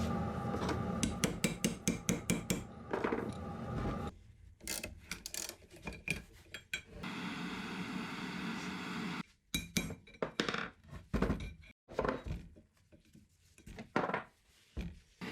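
Metal engine parts and hand tools clinking and knocking on a workbench, in quick runs of sharp strikes broken by abrupt cuts.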